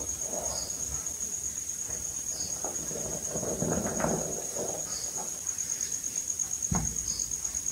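Hands squeezing and crumbling soft reformed gym chalk, giving a soft powdery crunching and rustling with small crackles. There is a low thump near the end, and a faint steady high-pitched tone runs underneath.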